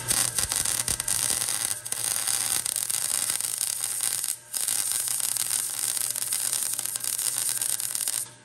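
MIG welding arc crackling steadily as ground-out cracks in a truck's steel frame are welded up. It pauses briefly twice and stops near the end.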